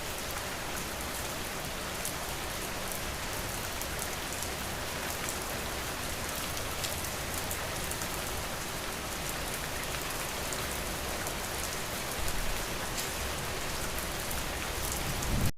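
Steady rain falling, with many small drop ticks over an even hiss; a short low rumble comes about twelve seconds in, and the sound cuts off at the very end.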